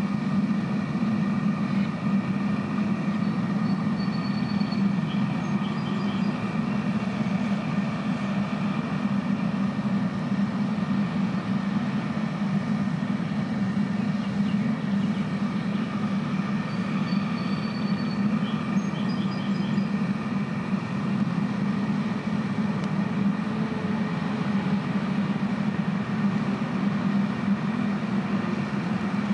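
Propane burner of a metal-melting furnace running with a steady roar.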